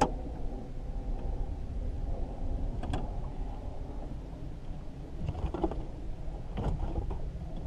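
Steady low rumble with knocks and thuds from gear being handled in an aluminum fishing boat: a sharp knock at the very start, then several more spread through the rest.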